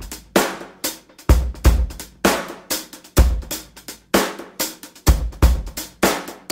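Background music: a steady drum-kit beat of kick drum, snare and cymbals.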